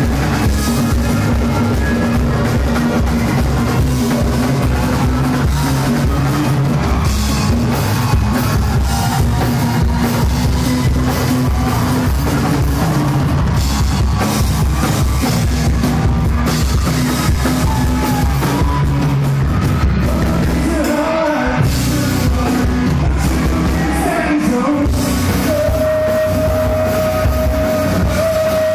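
Live rock band playing loudly, with a drum kit, bass guitar, guitars and singing. A single steady note is held for about three seconds near the end.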